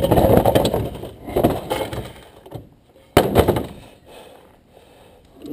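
Rough clattering and knocking of hard objects being handled, then a single sharp bang about three seconds in.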